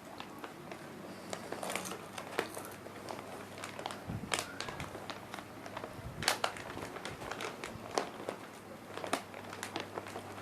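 Crunchy chips being eaten close to the microphone: irregular crisp crunching and crackling, with a few louder cracks.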